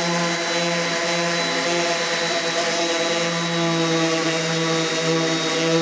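DeWalt 5-inch random orbit sander with a 120-grit disc running steadily against an oak cabinet door, a constant motor hum and whine over the hiss of the abrasive on the wood, stripping the clear coat.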